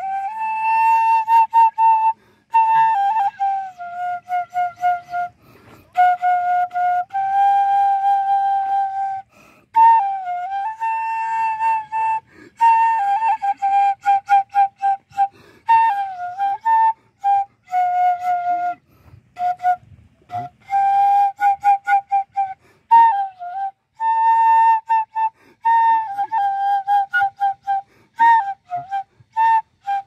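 A solo sogeum, a small Korean bamboo flute, playing a melody in short, detached notes mixed with a few held and sliding ones, with brief breaths between phrases.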